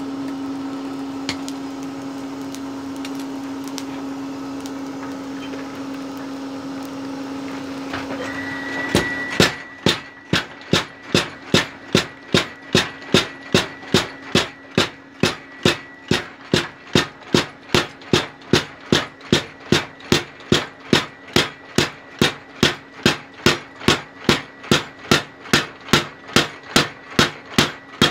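Homemade 25 kg mechanical power hammer: its motor starts with a steady whine, and about nine seconds in the ram begins hammering red-hot steel on the anvil, about two blows a second. Before that, a steady hum from the coal forge's air blower.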